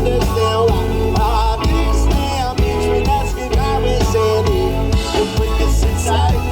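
Live band playing an instrumental passage between sung lines: drum kit and bass guitar under a wavering melodic lead line.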